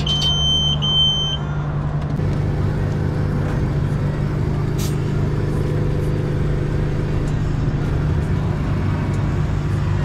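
Two short electronic beeps from a coin-operated tyre air machine's keypad as the pressure is set, over a steady low hum with traffic noise.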